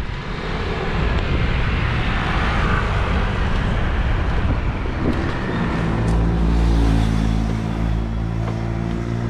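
Wind and road noise while a motor vehicle is being ridden. About halfway through, a steady low engine hum takes over as the vehicle slows and pulls up to stop.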